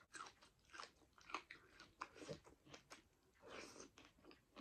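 Faint close-up eating sounds: a hand-fed mouthful of rice and sautéed saag greens being bitten and chewed, heard as irregular soft clicks and brief wet mouth noises.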